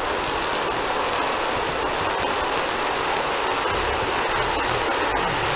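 Ground fountain firework spraying sparks with a steady, even hiss.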